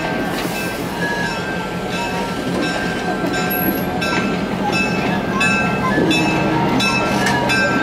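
Train running on the rails: a steady rumble with a few held tones and a faint click repeating about every half second.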